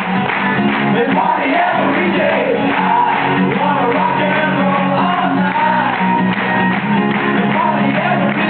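Live band playing a rock song with strummed acoustic guitars, with voices singing over it.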